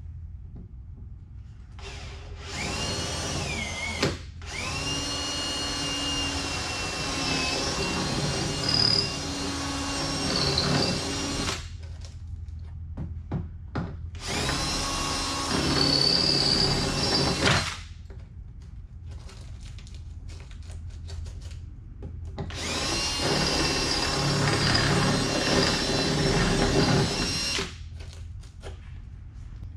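Power drill drilling out the factory spot welds that hold a truck's rocker panel outer skin to the body, running in three bursts of several seconds each; its whine dips as the bit bites into the steel.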